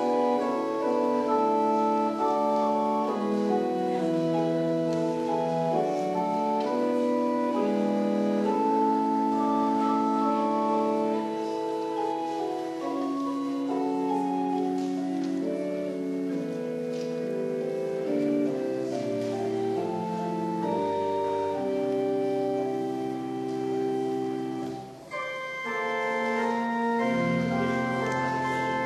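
Church organ playing sustained chords. Deeper bass notes come in about two-thirds of the way through, and there is a brief break near the end before the next phrase begins.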